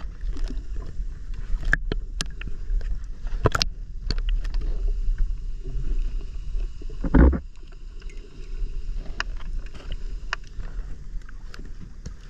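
Water sloshing around an action camera held at and just below the surface, under a steady low rumble with scattered sharp clicks and knocks, and one louder burst about seven seconds in.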